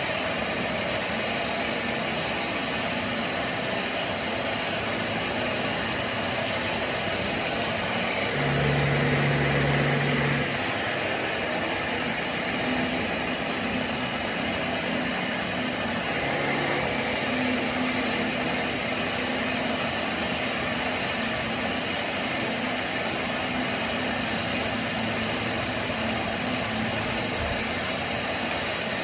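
Workshop machinery running steadily, a constant mechanical whir, with a louder low hum for about two seconds a little before halfway.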